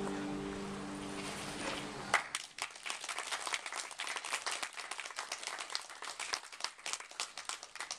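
The last chord of a koto ensemble rings on and fades, then is stopped about two seconds in; audience applause follows.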